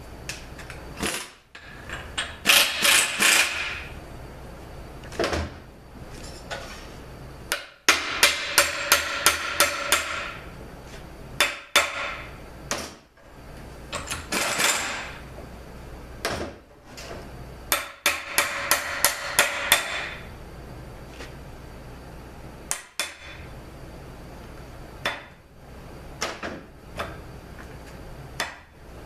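A hammer striking the steel parts of a 41TE automatic transmission in several bouts of quick blows, about three to four a second, each with a metallic ring. Single knocks and clinks fall between the bouts.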